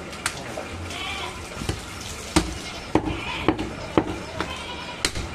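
A butcher's knife chopping goat meat on a wooden block makes sharp, irregular knocks, most of them from about two seconds in. A goat bleats twice in the background.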